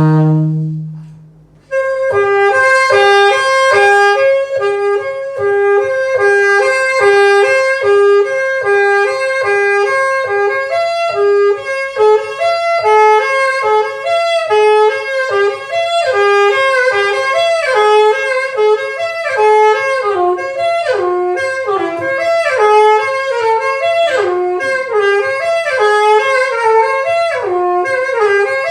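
Instrumental music: a held low note fades away at the start, then after a short gap a busy melodic line plays over a steady low pulse, growing more varied in its second half.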